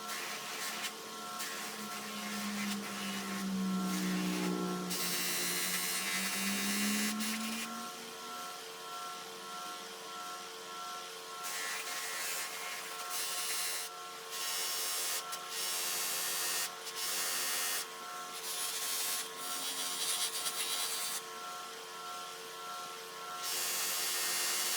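A small power tool running steadily while work is pressed against it again and again, the rasping grind coming and going every second or two.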